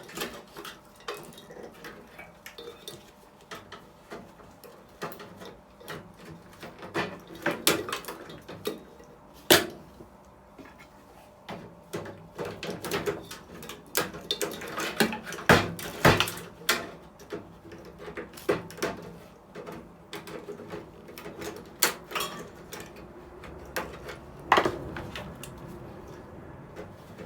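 Irregular metal clicks, rattles and knocks of a microwave oven being stripped by hand, as its wiring and connectors are pulled loose inside the sheet-metal case. A few sharper knocks stand out about ten, fifteen and twenty-five seconds in.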